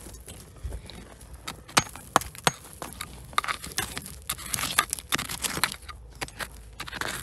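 Rocks and gravel being dug and shifted by hand: irregular sharp clicks and knocks of stone on stone, with scraping and rattling between them, densest in the middle of the stretch.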